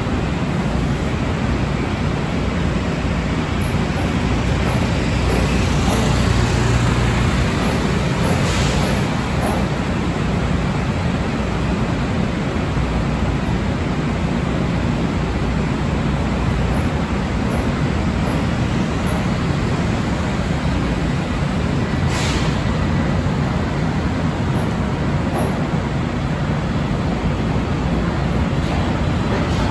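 Long Island Rail Road electric multiple-unit train rolling past along the platform, a steady rumble of wheels and running gear with two sharp clacks, about 9 and 22 seconds in.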